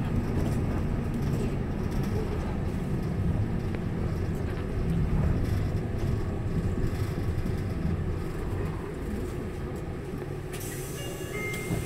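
Route bus interior: the engine and road rumble run steadily while the bus drives along. The rumble eases as it slows, and a sudden hiss starts near the end.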